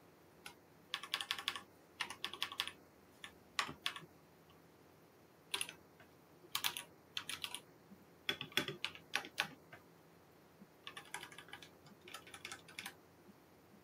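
Typing on a computer keyboard: short bursts of keystrokes with pauses in between, and now and then a single keystroke.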